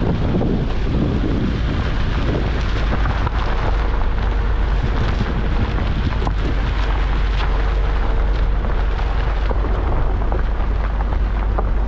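Wind buffeting a camera microphone mounted outside a Suzuki Vitara as it drives a gravel road, a steady low rumble over the hiss of tyres on gravel. Small stones give scattered ticks.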